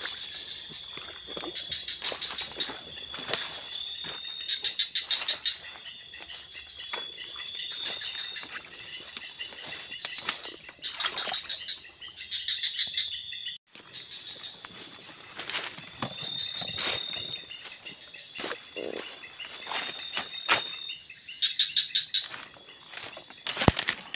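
Night insect chorus of crickets, a steady shrill drone at two high pitches, with short chirping calls repeating every second or two over it. Footsteps and brushing through undergrowth make intermittent rustles, denser and louder near the end.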